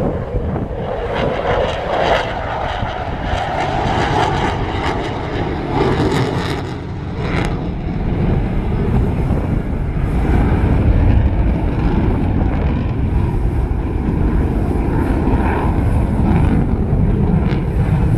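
Jet noise from an F/A-18F Super Hornet's twin General Electric F414 turbofan engines: a loud, broad rumble that grows louder about halfway through and holds there.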